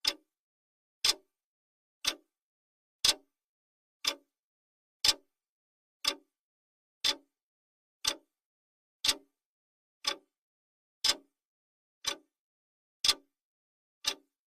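Countdown timer's clock ticking sound: sharp, short ticks, one each second, with silence between.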